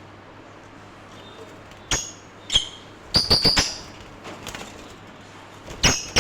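Lovebirds giving short, sharp chirps: single ones about two seconds in, a quick run of four or five a little after three seconds, and another pair near the end.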